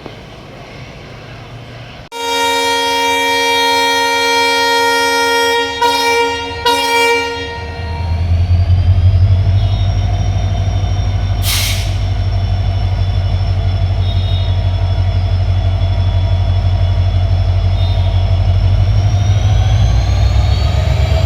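Indian Railways diesel locomotive sounding its horn: one long chord of several tones with two brief breaks near its end. The engine then throttles up to depart, a deep steady hum with a rising whine over it, and a brief hiss partway through.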